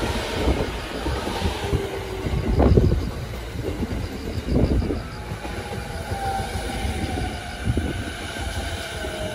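Electric commuter train running along beside the platform: a steady wheel-and-rail rumble with a few loud clacks as wheels cross rail joints. In the second half, a faint electric motor whine slides slightly down in pitch.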